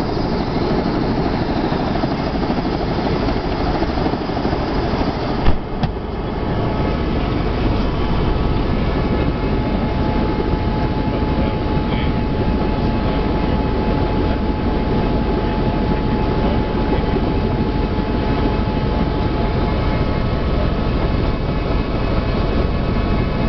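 Helicopter turbine and rotor running close by: a loud, steady mechanical noise with a faint high whine through it. It breaks briefly at an edit about five and a half seconds in.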